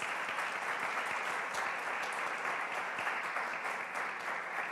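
Small audience applauding steadily after a lecture ends.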